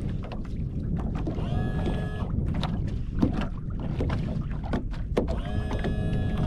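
Small boat sitting on shallow water: a steady low wash of wind and water against the hull, with scattered knocks and two short squeaky tones, about two seconds in and near the end.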